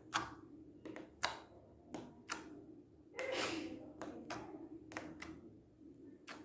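Clear slime with glitter being squeezed and pressed, giving a series of sharp, irregular clicks about every half second, with a longer squishing sound a little after three seconds in. The slime clicks only a little, taking some force to make each click.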